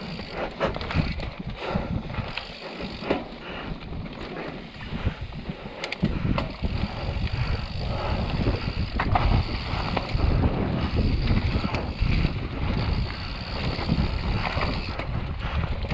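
Mountain bike descending a rough dirt trail, heard from the rider's own camera: knobby tyres rumbling over dirt and rocks, with frequent clicks and rattles from the bike. Wind buffets the microphone, heavier from about six seconds in.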